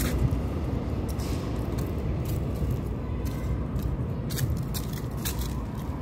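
Steady low outdoor rumble on a handheld phone's microphone, with scattered light clicks and rustles from the phone and bag strap being handled while walking.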